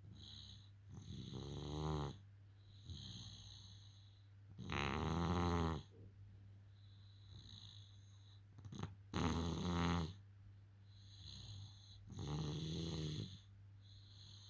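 Snoring: four loud snores about three and a half seconds apart, each lasting about a second, with softer breaths between them, over a steady low hum.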